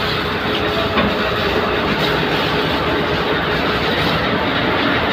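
Heavy diesel vehicle running, loud and steady, heard from on board.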